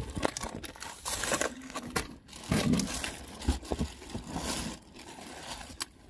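Backpacks and a clear plastic bag being pushed into a car's boot: plastic crinkling and bag fabric rustling, with several short knocks as bags bump into place.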